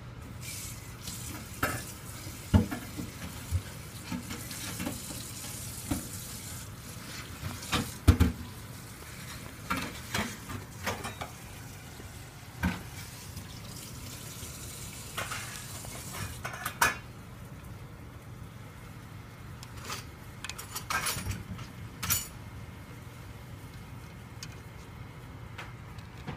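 Irregular clicks, knocks and scrapes of shell and metal inside a stainless steel pot: a live Dungeness crab's legs and claws and a pair of kitchen scissors knocking against the pot, with the loudest knock about eight seconds in.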